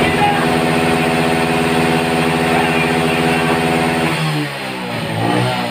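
Motorcycle engine revved and held at high, steady revs, then about four seconds in the revs drop and waver.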